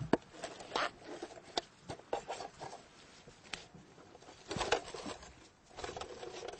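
Irregular rustling and sharp clicks of close handling as a mouse is taken from a live trap in a handling bag.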